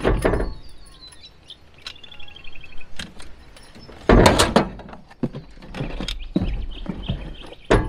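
Knocks and clatter of spring-gate handle parts, metal tubes, being handled and set down on a ute's aluminium tray. The loudest clatter comes about four seconds in. A bird chirps a quick repeated call about two seconds in.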